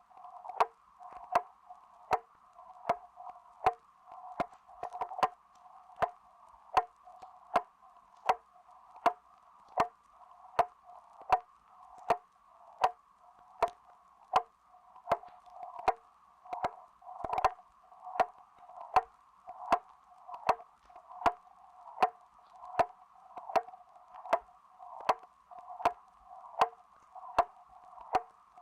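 Grandfather clock ticking: sharp, evenly spaced ticks, a little more than one a second.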